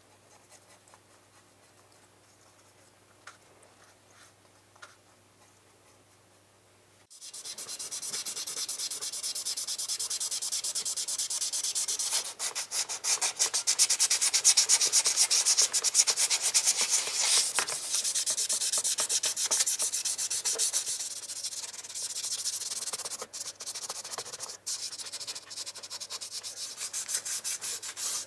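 Hand sanding of a 1/18 die-cast model car part: faint ticks of handling at first, then about seven seconds in, rapid back-and-forth scratching strokes of abrasive on the metal begin and go on.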